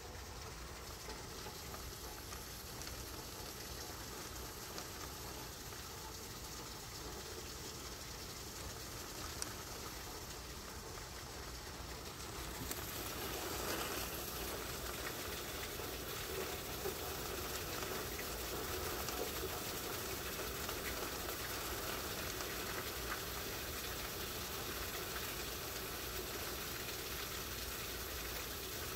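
Heavy tropical-storm rain, a steady rushing noise that grows louder about thirteen seconds in.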